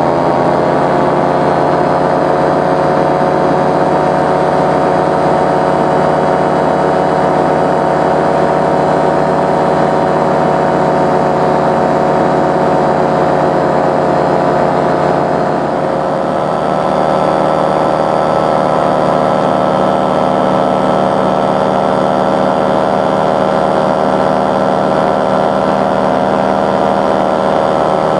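Powered paraglider's paramotor engine and propeller running steadily at cruise. The engine note rises slightly right at the start, dips briefly about halfway through and settles a little lower.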